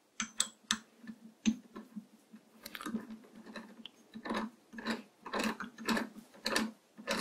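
Old three-jaw lathe chuck being worked with its homemade T-handle key, the scroll and jaws turning with a run of small metallic clicks and ticks, sparse at first and coming thicker about halfway through. The scroll turns easily.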